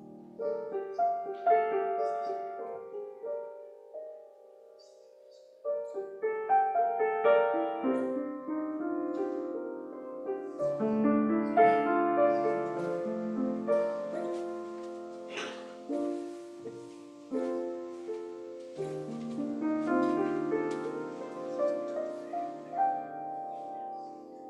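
Solo piano music, with a short break in the playing about four seconds in before it picks up again.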